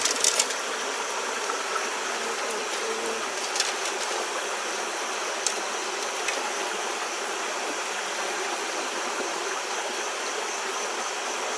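Steady rush of a shallow stream flowing over rocks, with a few faint clicks.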